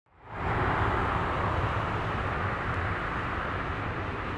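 Jet engines of a Japan Airlines Boeing 787 (GEnx turbofans) running at taxi power as the airliner rolls along the taxiway: a steady jet noise with a low rumble underneath. It fades in over the first half second and eases off a little toward the end.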